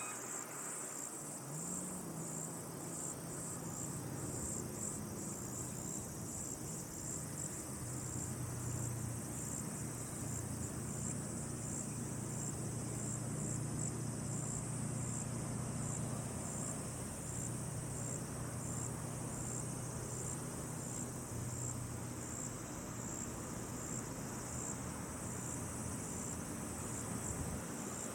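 Crickets chirping in a high, evenly pulsing chorus, with a low steady hum underneath.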